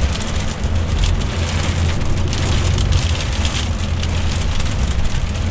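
Steady in-cab noise of a DAF truck driving on a snowy motorway: the diesel engine's low drone and tyre and road noise, with wet snow and sleet hitting the windscreen.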